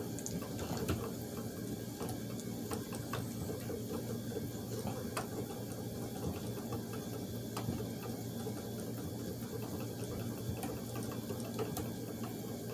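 Treadle spinning wheel running: the foot pedal turns the big drive wheel and its cord spins the flyer and bobbin as wool is twisted into yarn. A steady low whir with scattered light clicks and knocks.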